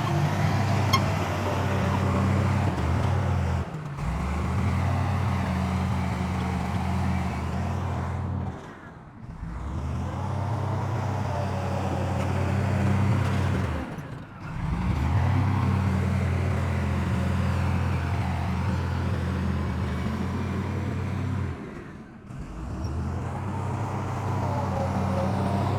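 Heavy diesel earthmoving machinery engine running steadily with a low drone. It drops out briefly about four times.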